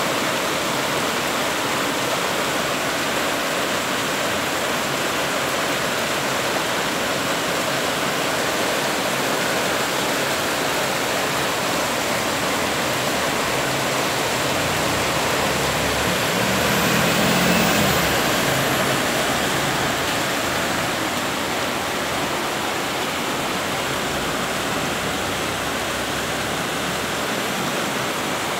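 Heavy rain pouring down, a steady dense hiss of water. A little past the middle it briefly swells louder, with a low hum.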